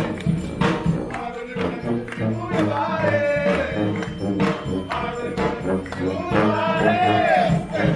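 Live brass street band playing: horn melody lines over a low bass part and steady drums and percussion.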